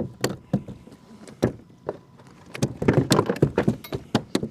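Irregular knocks, clicks and rattles of gear being handled on a kayak, with a few sharp knocks at first and a busy run of them in the second half.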